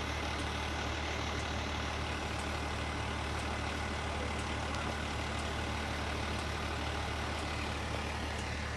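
A heavy rescue truck's diesel engine idles steadily under a hiss of heavy rain. Faint ticks come about once a second.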